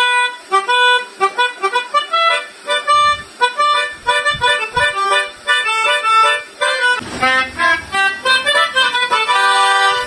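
Telolet basuri multi-tone horn playing a quick melody of reedy notes that change several times a second.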